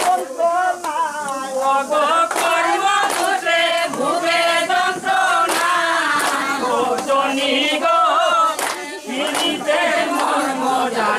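A group of women singing a wedding song together in chorus, their voices overlapping, with a few sharp claps.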